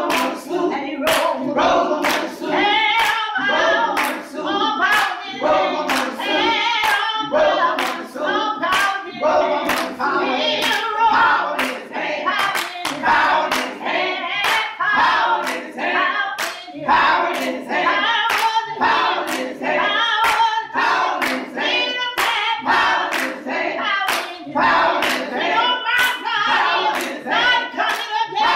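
A small group of church singers, men and women together, singing a gospel song with steady hand-clapping on the beat, about two claps a second.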